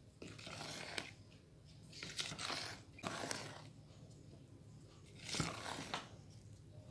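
Spatula stirring and scraping thick brownie batter around a plastic bowl: a few irregular wet scraping strokes with small clicks against the bowl.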